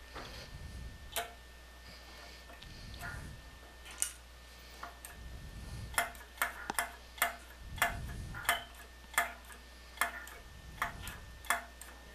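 Sharp metal clicks from the brass trip lever assembly of a pop-up sink drain and its nut as it is tightened with an adjustable wrench. The clicks are sparse at first, then come about two a second over the second half, over soft handling rumbles.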